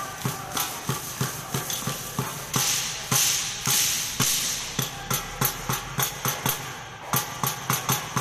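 A troupe of performers striking sticks together in unison, a steady beat of sharp clacks at about three a second, with a few louder rushing noises partway through.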